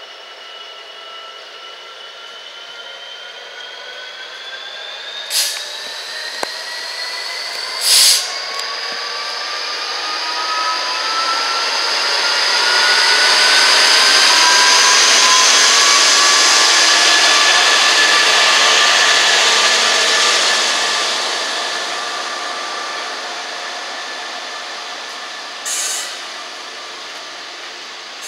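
A Freightliner Class 66 diesel-electric locomotive, with its EMD two-stroke V12 engine, passes close at the head of a container train. Its engine and turbocharger whine rises steadily in pitch and is loudest as the locomotive goes by, about midway through. The container wagons then roll past more quietly. Sharp clicks come about five and eight seconds in and again near the end.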